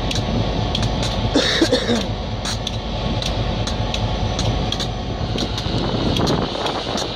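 Diesel switcher locomotive's engine running with a steady low throb. A short, higher-pitched sound rises over it about a second and a half in.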